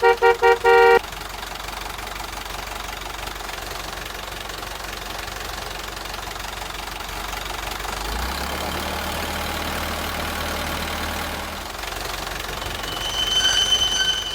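A truck horn toots about five quick times and then once a little longer. After that a truck engine runs steadily, with a deeper hum joining about eight seconds in for a few seconds. Near the end a shrill high tone sounds briefly.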